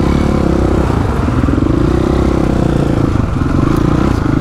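Dirt bike engines running at low revs, a steady low drone that stays level throughout, with a brief dip about three seconds in.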